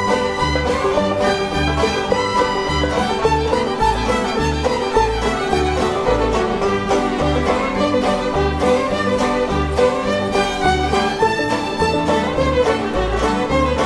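Background music: an upbeat bluegrass-style tune with fiddle and a steady bass beat.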